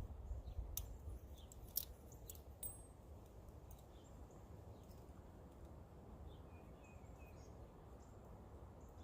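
A few light, sharp clicks in the first three seconds, then faint steady outdoor background with a brief faint chirp.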